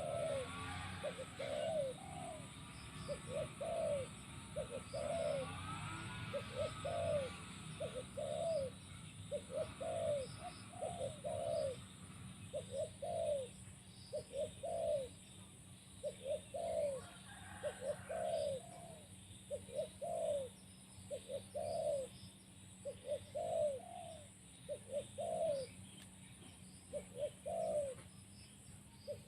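Spotted doves cooing: short, repeated coo phrases, about one every second or so, with a few higher chirps from other birds.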